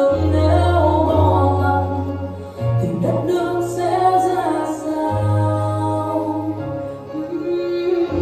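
A song playing: a woman singing over an instrumental backing with sustained bass notes.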